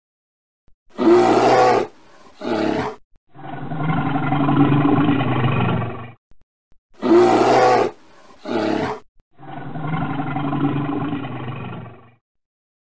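A looped animal roar sound effect: a loud roar, a short second roar, then a long drawn-out roar about three seconds long. The same sequence starts again about seven seconds in.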